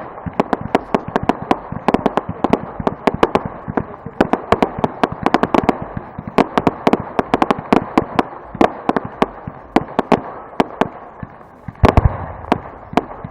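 Fireworks crackling and banging in rapid succession, several sharp cracks a second, with two heavier bangs close together near the end.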